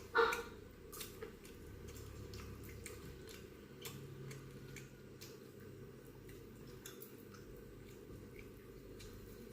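Close-up eating sounds: chewing with small wet clicks and smacks scattered throughout, a louder one right at the start.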